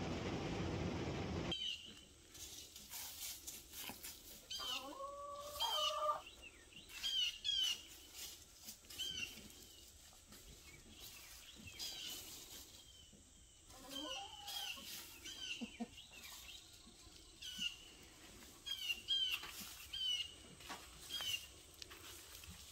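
Heavy rain falling, cut off suddenly about a second and a half in. Then chickens foraging in dry leaf litter: rustling and small clicks of feet and scratching, with a couple of short hen calls and repeated short, high falling bird chirps.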